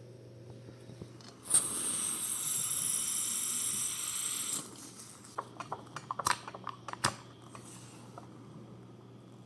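A pressurised spray hissing steadily for about three seconds, starting with a click, then a scatter of small clicks and taps from handling tools and containers.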